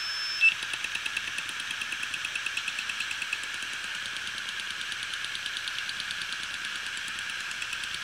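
Seagate Barracuda 7200.11 hard drive running with its cover off, a drive already dead from the SD15 firmware fault. The spinning platter gives a steady whir, and the head assembly ticks rapidly and evenly, about seven times a second, as its arm is pushed by hand; the ticking is stronger in the first three seconds. A sharp click and a brief high tone come right at the start.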